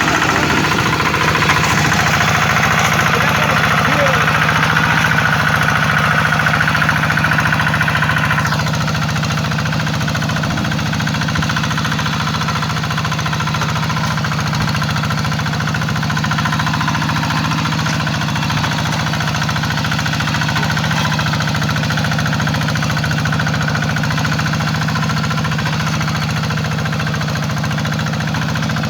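Hand tractor's single-cylinder diesel engine running steadily under load with a fast, even knocking beat. A higher-pitched hiss above it drops away about eight seconds in.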